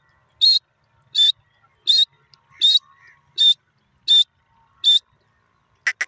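Grey francolin (teetar) calling: a run of seven short, shrill, high-pitched calls, about one every 0.7 seconds.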